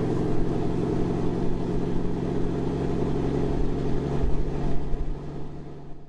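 The song's last chord, held and ringing on at a steady pitch with a low rumble beneath, then fading out near the end.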